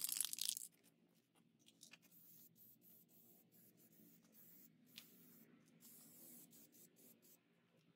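Aerosol spray paint can hissing in short bursts: a louder burst of under a second at the start, then fainter, broken hissing.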